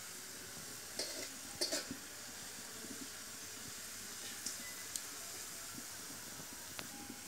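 Chopped onions frying in oil in a metal pan, a faint, steady sizzle, with a few brief scrapes as a metal spatula stirs them.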